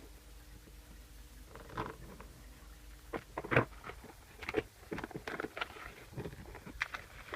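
Hands opening a cardboard iPhone 6 Plus box: scattered rustles, scrapes and light taps. They come sparsely from about a second and a half in and grow busier after about three seconds.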